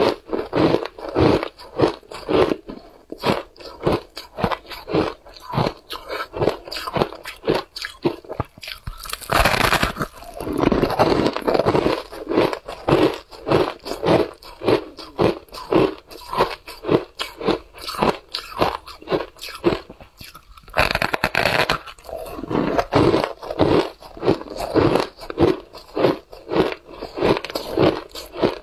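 Someone chewing a mouthful of matcha-topped shaved ice: quick, rhythmic crunching at about two to three crunches a second, with a louder, denser burst of crunching about nine seconds in and again about twenty-one seconds in as fresh bites are taken.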